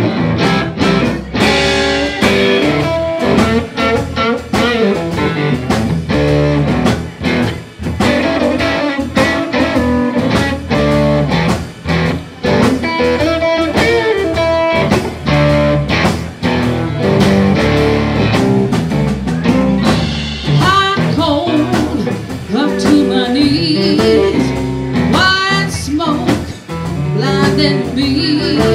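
A live blues-rock band playing: a drum kit with cymbals, electric bass and electric guitar. A woman's singing voice comes in about two-thirds of the way through.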